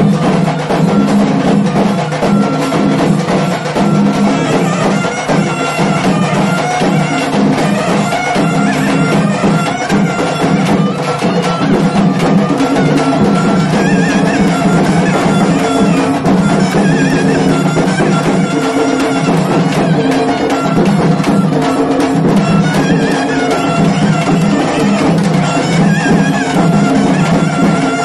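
Naiyandi melam troupe playing: a loud nadaswaram melody over fast, unbroken drumming.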